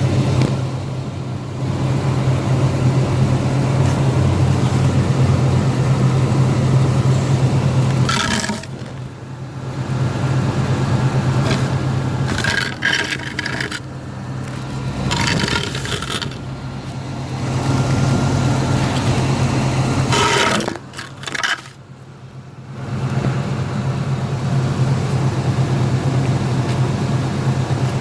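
A 2002 Cadillac Escalade AWD running with a steady low drone, broken several times by short bursts of popping.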